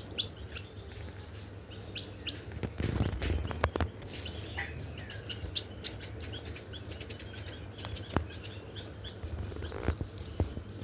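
Birds chirping: many short, high chirps in quick succession, with a louder noisy burst about three seconds in.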